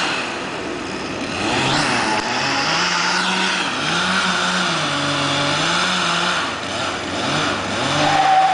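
Chainsaw engine running continuously, its pitch rising and falling as the throttle and cutting load change.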